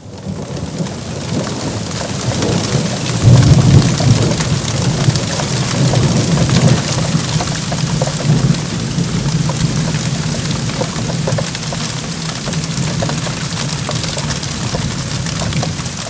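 Torrential rain with thunder: a steady hiss of heavy rain with many close drop hits, under a low rumble of thunder that swells about three seconds in and eases off after about eleven seconds.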